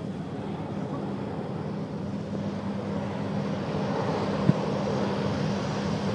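Distant jet noise from an Airbus A380's four Rolls-Royce Trent 900 turbofans as the airliner flies overhead: a steady rumble that grows a little louder, with a steady low hum beneath it. A single sharp click comes about four and a half seconds in.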